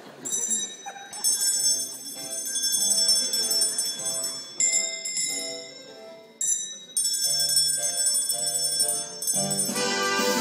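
Music carried by ringing bell notes: a run of short, pitched, chime-like notes playing a tune, with a brief pause a little past six seconds before the notes start again.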